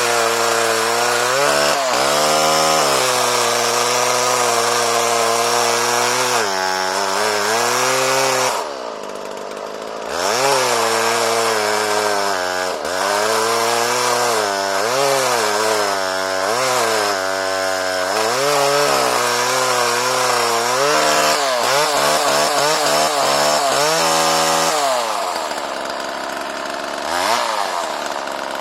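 Homelite Super 2 26 cc two-stroke chainsaw running and cutting wood, its pitch rising and falling as the chain bites and frees. It goes quieter briefly about nine seconds in, then revs up again.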